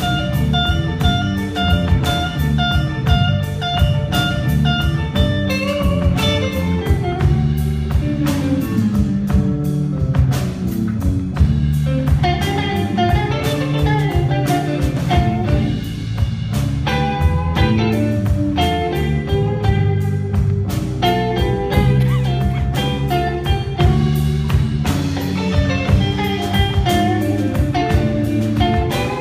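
Live blues band playing an instrumental section: electric guitar lines over bass guitar and a drum kit, with a steady beat.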